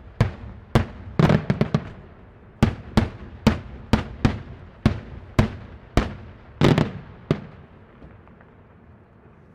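Daytime fireworks bursting in a rapid string of sharp bangs, about two a second, with a quick flurry of reports between one and two seconds in. The bangs stop about seven seconds in.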